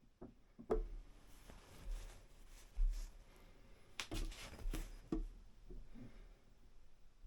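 A handful of light knocks and clicks from handling, with soft rustling between them, as the bottle of wood-swelling fluid and the axe are handled.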